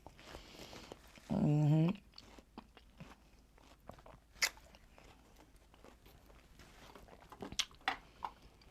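A person chewing and biting into watermelon: soft wet crunches and mouth clicks scattered through. About a second in there is one short hummed voice sound, the loudest thing heard.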